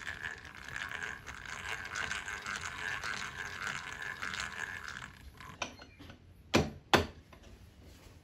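Hand-cranked drill turning, its gears whirring with a fine rapid clicking as it bores a small pilot hole into the end of a wooden dowel. It stops about five seconds in, and two sharp knocks follow, the loudest sounds here.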